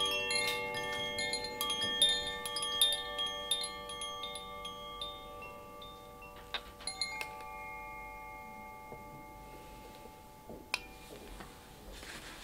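Gentle chime music: bell-like notes struck one after another, each ringing on and overlapping the next. The strikes grow sparser after about seven seconds and the ringing fades out near the end.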